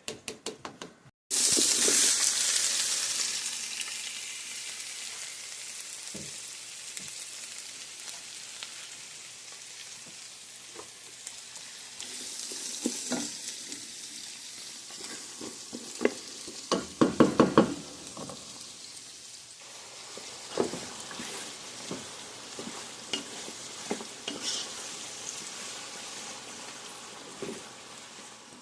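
Food dropped into hot oil in a pan: a sudden loud sizzle about a second in that settles into steady frying, with a spoon knocking and scraping against the pan now and then, a quick run of knocks past the middle.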